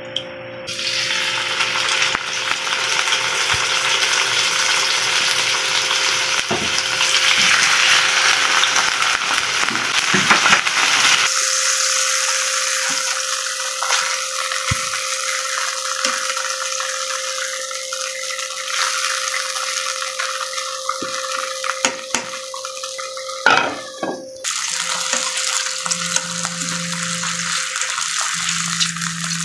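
Soy-and-calamansi-marinated pork steaks sizzling steadily in hot oil in a frying pan, with a few light clicks of metal tongs as the meat is turned.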